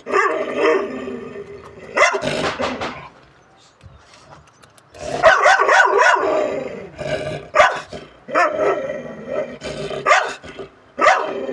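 A farm guard dog barking in repeated bouts, with a louder, longer stretch about five to seven seconds in.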